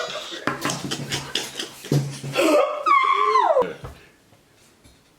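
People laughing hard in rapid bursts, with a high voice sliding down in pitch about three seconds in; the laughter fades out near the end.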